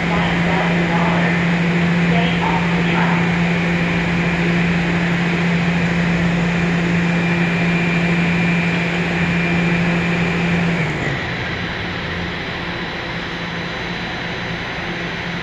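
Steady machinery hum in an underground subway station, a low drone with a thin high whine. About eleven seconds in, the drone and whine cut off together, leaving a quieter even hiss.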